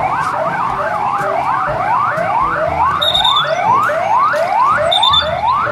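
Police car sirens sounding in quick rising whoops, about two and a half a second. In the first second or so, sirens overlap out of step, then one regular pattern takes over.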